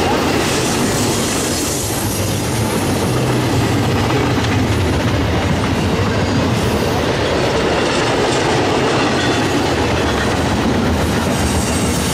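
Long double-stack intermodal container train rolling past, its well cars' wheels running steadily and loudly on the rails.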